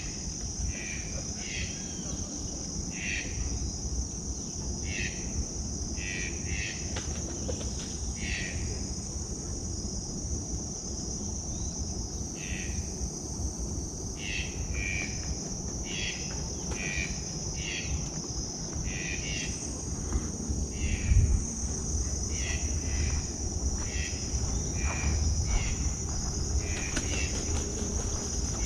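Steady high-pitched insect trill, typical of crickets, with short calls repeating about once a second, pausing for a few seconds in the middle. A low rumble runs underneath.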